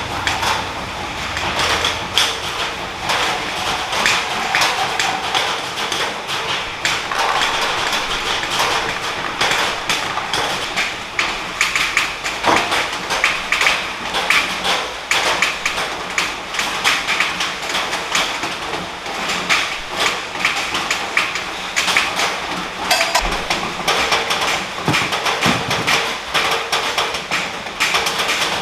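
Heavy rain drumming on a corrugated metal roof: a dense, irregular patter of drops over a steady hiss.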